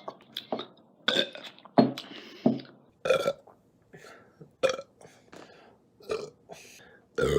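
A man burping over and over: a string of short burps, one after another, with brief gaps between them.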